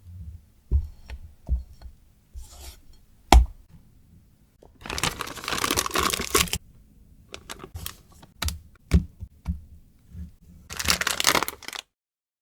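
Kitchen handling sounds while working chocolate cake batter: a few sharp knocks of utensils or the pan, the loudest about three seconds in, and two longer stretches of scraping or rustling. The sound cuts off suddenly near the end.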